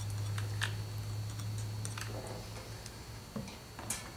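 Light, irregular clicks and taps of a hot-glued plaster rock casting being handled and pressed into place on a model railway layout, over a steady low hum.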